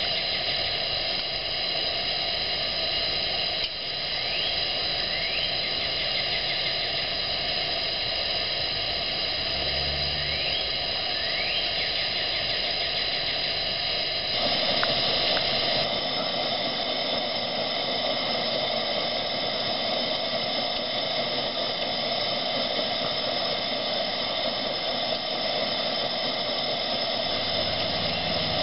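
Coleman 228E gasoline pressure lantern burning, its burner giving a steady hiss. The hiss shifts to a slightly fuller tone about halfway through.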